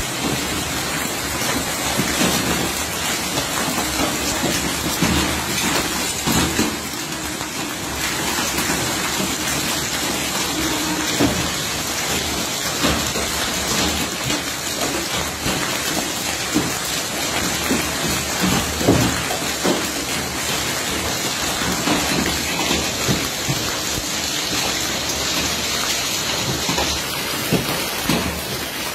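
Hailstorm: hailstones pelting the ground and nearby surfaces in a dense, steady hiss scattered with many sharp individual strikes.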